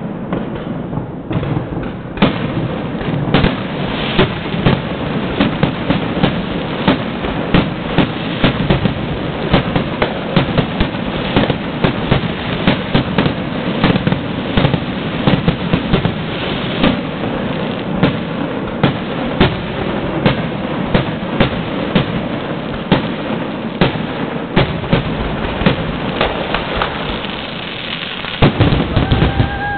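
Fireworks grand finale: a rapid barrage of aerial shells bursting, about two sharp bangs a second over a continuous rumbling crackle.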